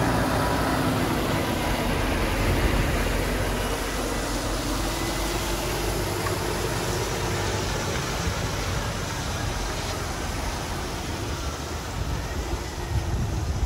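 Diesel semi-trailer trucks, a Volvo FH 460 first, driving slowly past one after another: a steady engine drone with tyre and road noise on wet paving.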